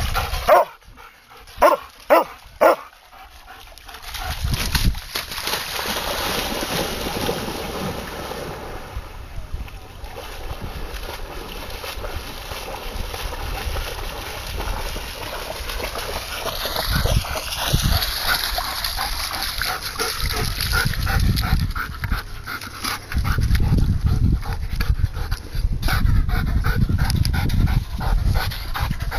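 Alaskan Malamute panting and whimpering, with a few short, loud barks in the first three seconds.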